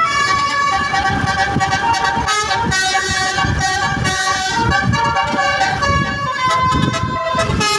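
Basuri telolet multi-tone bus horn playing a tune through a Zeta Project melody module: steady horn notes that step from pitch to pitch, over a low rumble.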